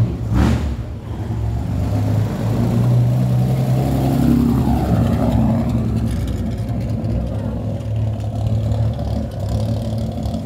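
Car engine running steadily close by, with a short knock just after the start.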